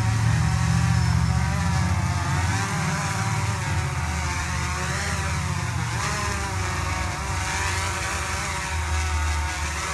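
Motor of a remote-controlled grass blower running continuously, its pitch rising and falling as it moves about.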